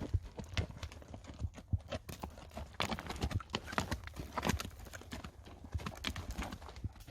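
Horse's hooves striking the ground at a walk: an irregular run of clops.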